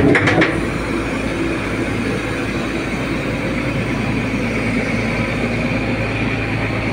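Heavy diesel engine idling steadily: an even, continuous low hum and rumble with no change in speed.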